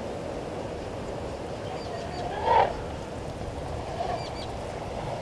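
A single short honking animal call about halfway through, rising in pitch and ending in a brief loud peak, over faint high bird chirps.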